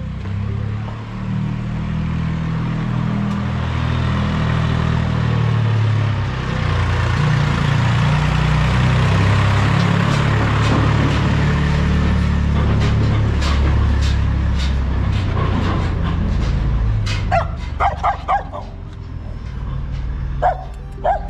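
Diesel farm tractor's engine running as it passes close by with a trailer. Near the end a dog barks in two short runs of a few barks each.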